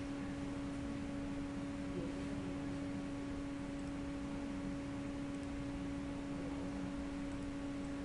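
Steady background hum with a faint hiss, one pitch held unchanged with no break.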